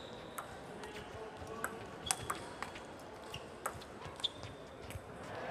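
Table tennis balls clicking against tables and bats in scattered single ticks, several with a short, high ring, over the low hum of a large hall.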